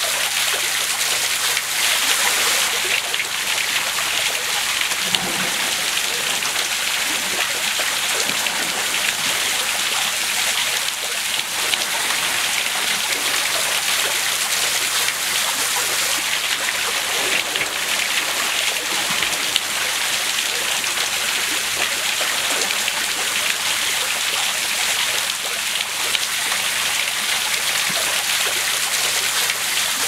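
Steady rush of falling water: a waterfall pouring into a pool.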